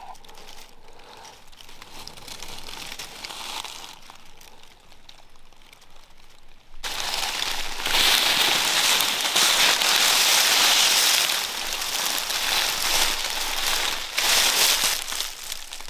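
Rustling and crackling close by: faint at first, then much louder and denser from about seven seconds in.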